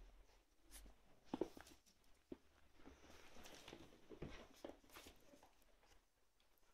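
Near silence with faint scuffling and a few light knocks as a puppy shuffles about on a carpet; the sharpest knock comes about one and a half seconds in.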